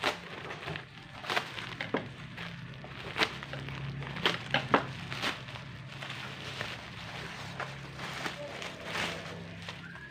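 Black plastic bag wrapping crinkling and crackling as it is pulled open and unwrapped by hand, with a dozen or so sharp crackles, the loudest between about four and five seconds in. A steady low hum runs underneath.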